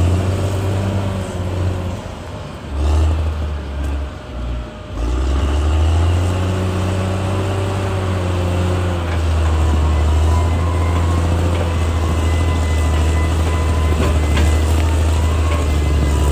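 Caterpillar D6R XL bulldozer's diesel engine running as it works, a deep steady drone that dips and surges a few times in the first five seconds, then holds steady.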